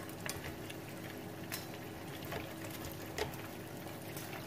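Hot oil sizzling steadily around nem rán (Vietnamese fried spring rolls) at the end of deep-frying, as they are lifted out with a metal skimmer. A few sharp pops and light clicks break through it.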